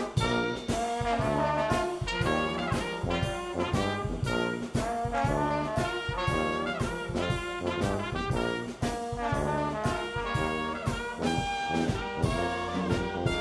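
Brass band music: trombones and trumpets playing a lively jazz tune over a steady beat.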